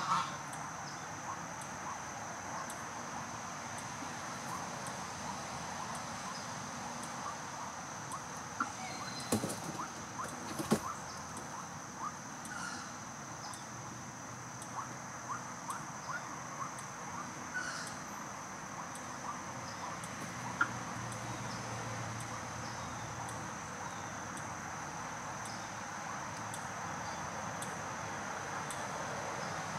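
Steady outdoor background hiss with a constant thin high-pitched whine, scattered faint short chirps, and a few sharp clicks, the loudest about eleven seconds in and another about twenty seconds in.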